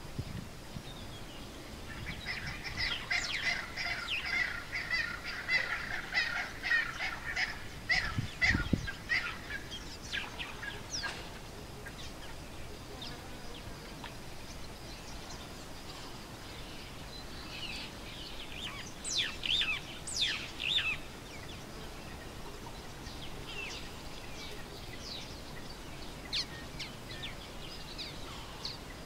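Birds calling in a long chattering run of short, harsh notes, then a second brief cluster of calls and scattered single chirps over a steady outdoor background. A low thump comes about eight seconds in.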